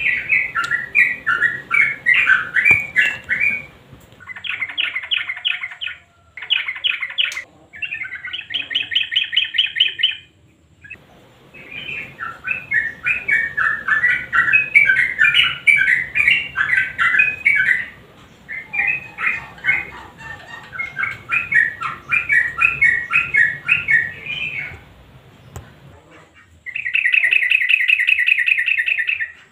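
Yellow-vented bulbul (trucukan) singing: phrases of quick, bubbly chattering notes separated by short pauses. Fast, even rattling trills come about nine seconds in and again near the end.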